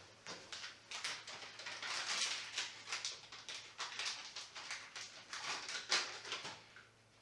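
Rubber-gloved hands handling a cloth and a small item: a run of irregular rustles and crinkles, thickest in the middle and dying away near the end.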